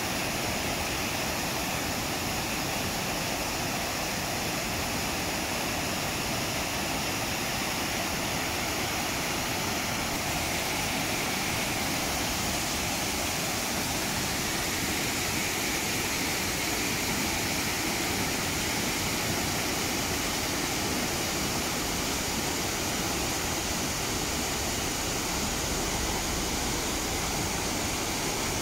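River rapids in high spring flow, white water pouring over rocks in a steady, even rush.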